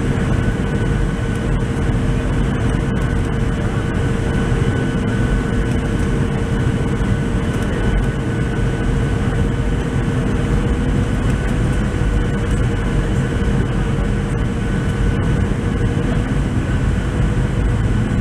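Cabin noise of a Boeing 737-700 on final approach: its CFM56-7B jet engines and the airflow give a steady, loud rumble with a droning hum running through it.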